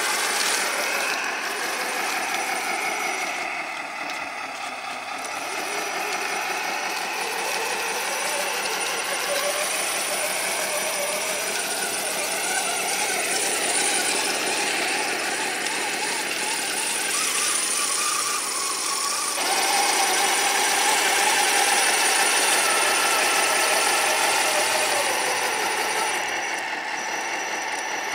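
A custom 1/14-scale electric RC semi truck on six rubber tracks is driving. Its brushed motors and transmissions give a geared whine that wavers in pitch as the throttle changes, along with the rattle of the tracks. About two-thirds of the way through it gets louder and the whine steps higher.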